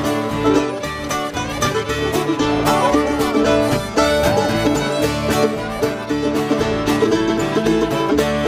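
Live folk dance band playing a contra dance tune with a steady beat.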